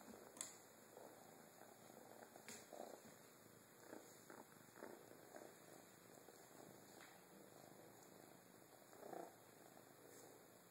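Faint purring of a kitten held close, with a couple of light clicks in the first few seconds.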